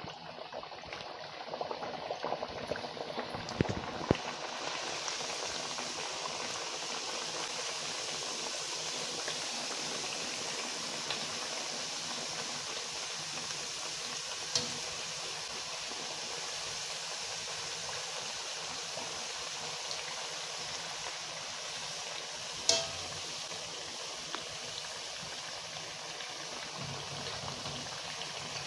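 Mandazi dough deep-frying in hot oil: a steady bubbling sizzle that builds over the first few seconds and then holds even, with a few sharp clicks along the way.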